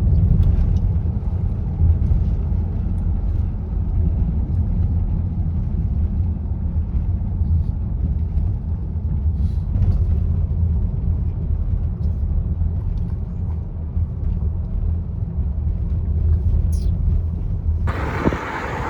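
Steady low rumble of road and wind noise while travelling, with faint scattered ticks. About a second before the end it switches abruptly to a brighter, louder hiss.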